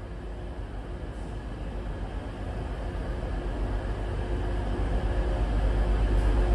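TransPennine Express Class 185 diesel multiple unit pulling out along a station platform. It makes a steady low diesel drone that grows louder as the train moves off past the microphone.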